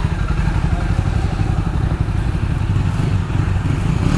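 Ducati Monster 821's L-twin engine idling with a low, rapidly pulsing note.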